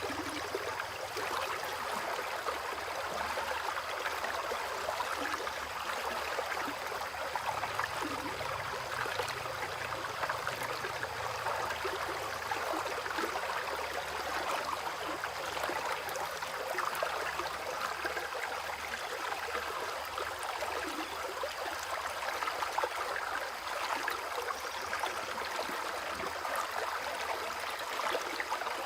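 Stream water running steadily, with rain falling around it: an even rushing wash flecked with fine drop ticks.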